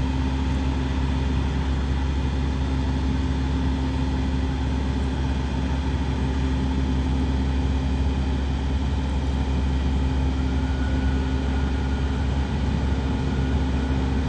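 Steady low rumble of a motor vehicle running, with a constant engine hum and no change over the whole stretch.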